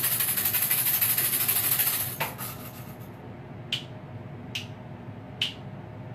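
Tail of a livestream sound effect: a loud rushing noise with a fast flutter that fades out about three seconds in, then three sharp clicks a little under a second apart.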